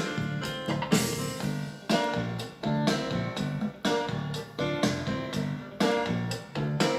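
Recorded band music played back on a reel-to-reel tape deck: guitar and drum kit over a steady beat.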